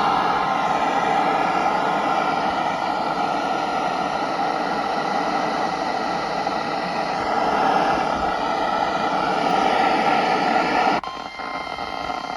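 Radio static: a loud, steady hiss with a faint steady tone near 1 kHz underneath, cutting off abruptly about eleven seconds in.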